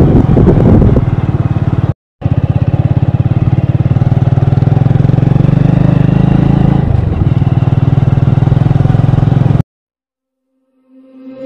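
Motorcycle engine running steadily on the move, with a fast, even pulsing. The sound drops out briefly about two seconds in and cuts off abruptly near the end.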